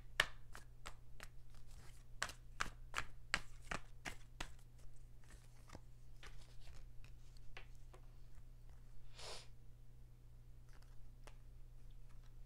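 A deck of tarot cards being shuffled by hand: a quick run of crisp card clicks, about three a second, that thins out after about five seconds into a few scattered taps, with a brief swish about nine seconds in, over a steady low hum.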